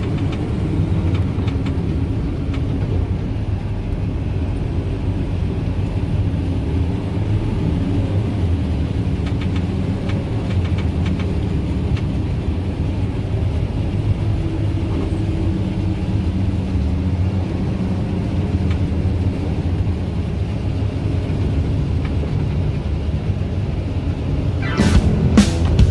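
Tractor and forage harvester running together while chopping corn silage: a steady, low engine rumble. About a second before the end, a quick series of sharp clicks and knocks cuts in.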